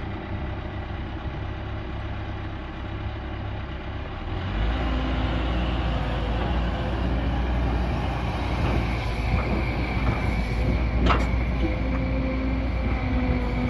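Excavator's diesel engine running with hydraulic whine, the engine note getting louder and heavier about four and a half seconds in as it comes under load, and a single sharp clank about eleven seconds in.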